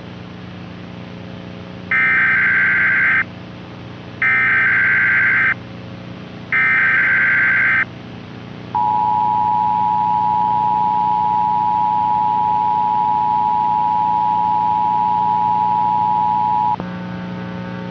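Emergency Alert System broadcast tones, marking the start of an emergency alert: three short bursts of SAME header data about a second apart, then the steady two-tone attention signal held for about eight seconds. All of it plays over a low hum, and a louder buzzing hum takes over near the end.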